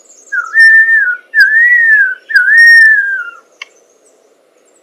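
Superb lyrebird giving three loud whistled phrases in a row, each about a second long and swooping up and then down.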